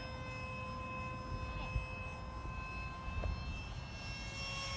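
Electric ducted fan of an RC F/A-18 jet whining steadily in flight, a high steady whine made of several pitches at once, heard over a low rumble. A few more tones join the whine near the end.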